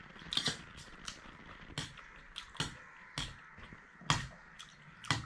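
Close-up eating sounds: irregular sharp clicks and smacks, about ten in five seconds, from chewing noodles and momos and a fork working on the plate.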